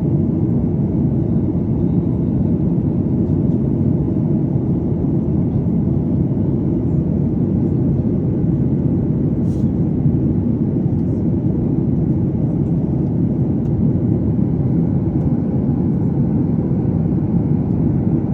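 Airliner cabin noise during the climb after takeoff: a steady low rumble of engines and rushing air, even throughout.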